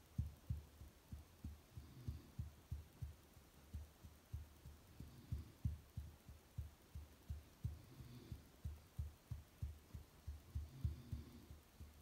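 Faint, soft low thumps, about three a second, from a hand gently and rhythmically patting a sleeping border collie to settle it.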